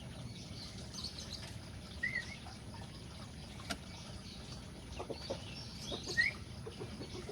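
Cockatiels chirping, with a couple of short rising chirps standing out and a single sharp click about halfway.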